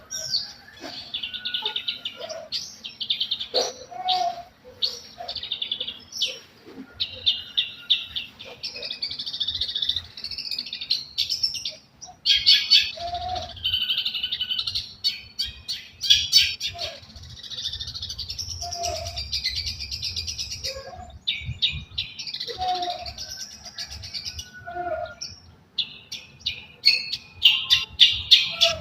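Long-tailed shrike (cendet) singing, stringing Eurasian tree sparrow-style chirping into its song. Rapid, high chattering phrases come in runs with short gaps, mixed with short lower notes every few seconds.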